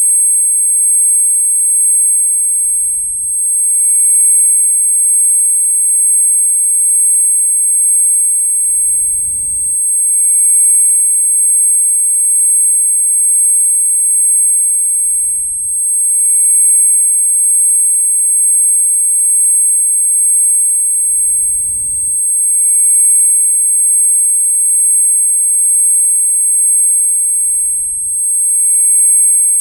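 Ear-ringing (tinnitus) sound effect: a continuous, very high-pitched steady whine made of a few pure tones. A faint low thud comes about every six seconds, with a slight dip in loudness.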